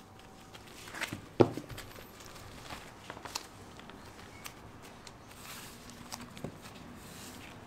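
Scattered light clicks and knocks, with one sharp knock about a second and a half in.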